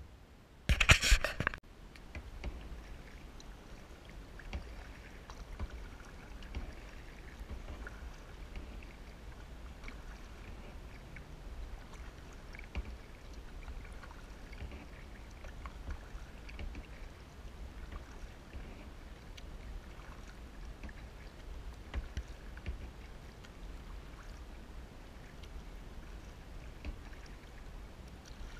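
Kayak being paddled: paddle strokes and water lapping and dripping, with a steady low rumble and scattered small splashes and ticks. A brief loud burst of noise about a second in is the loudest thing.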